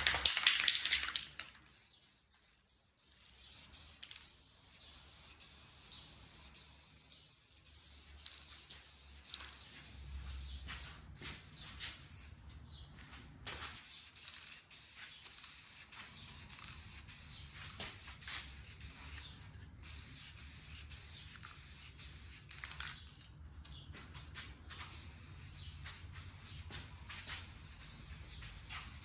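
Aerosol rattle can of primer spraying in long hissing passes, broken by short pauses between passes, after a brief louder noise in the first second.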